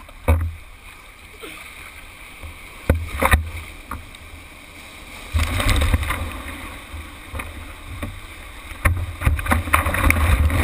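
Ocean water sloshing and splashing against a surfboard-mounted camera as whitewater from a breaking wave washes over the board, with rough low buffeting on the microphone. A couple of sharp slaps come about three seconds in. The churning grows louder about five seconds in and again near the end.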